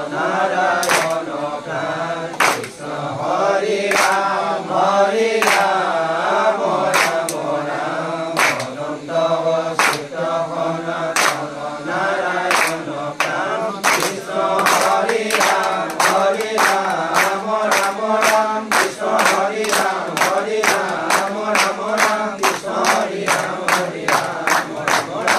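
A group of voices chanting Assamese devotional nam (nam-prasanga) in unison, with sharp percussive beats keeping time. The beats quicken through the passage, to about three a second near the end.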